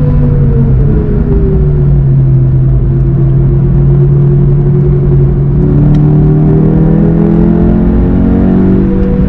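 Volkswagen Golf 7 GTI TCR's turbocharged four-cylinder engine heard from inside the cabin. Its note falls as the car slows for a corner, holds low through the bend, then climbs steadily as it accelerates out.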